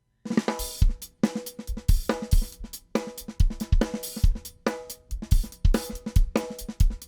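Instrumental trio's drum kit coming in with a steady groove after a brief silence: kick drum, snare and cymbals on a regular beat about twice a second, with pitched instruments holding notes beneath.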